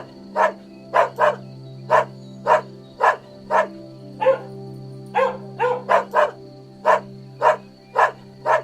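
A dog barking repeatedly: short, sharp barks about two a second, some coming in quick pairs, over a steady background music drone.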